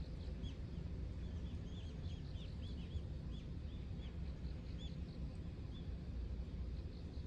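A bird chirping over and over in short, high, arched calls that thin out near the end, over a steady low rumble.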